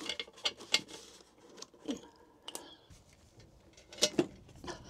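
Irregular metal clicks and knocks from a hand ratchet and socket working on the securing screws of an engine's crank carrier and case half. The loudest clicks come about four seconds in.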